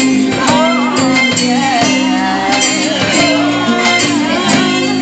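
Pop ballad music between sung lines: sustained chords over a steady light beat. A wordless melodic line glides up and down over it during the first couple of seconds.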